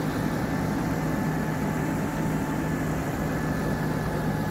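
JCB Fastrac tractor's diesel engine idling steadily, an even hum that does not change.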